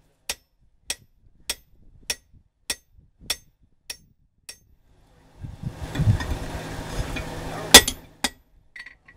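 Hand hammer striking the top of a steel drift, driving it into the hot slit eye of a coil-spring axe head on the anvil. About eight evenly spaced blows come at a little under two a second, then after a short pause a louder blow near the end is followed closely by a lighter one.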